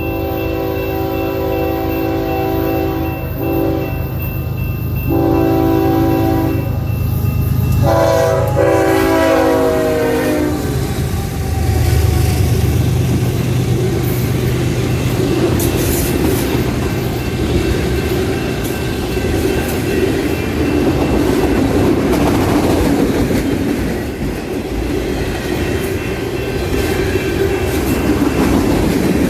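A CPR diesel locomotive's air horn sounds the closing blasts of a long-and-short crossing sequence, a chord of several notes; the last long blast changes pitch as the locomotive passes. The diesel locomotives then rumble by, and a long freight train rolls past with steady wheel noise and clickety-clack.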